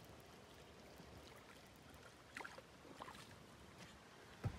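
Hooked tilapia splashing a couple of times at the water's surface, then a sharp thump near the end as it is swung out of the water. A faint steady hiss lies underneath.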